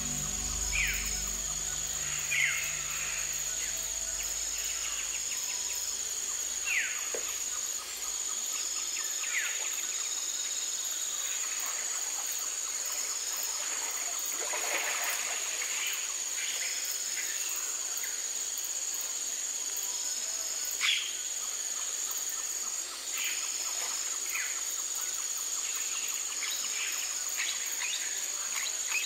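Tropical forest ambience: insects keep up a steady high drone with a regular pulsing chirp, while a bird gives short, sharp falling calls at irregular intervals. A low held tone fades out in the first several seconds.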